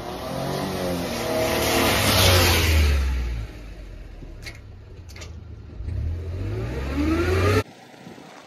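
A motor vehicle's engine revving: the note swells and fades once, loudest about two seconds in, then rises again and is cut off abruptly near the end.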